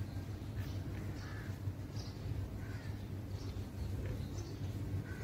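Short bird calls repeating about once a second, over a steady low hum.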